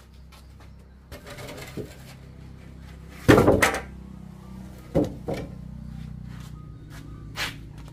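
Heavy wooden planks being dragged and set down on a concrete floor: a scrape, then a loud wooden thud about three seconds in, followed by a few smaller knocks.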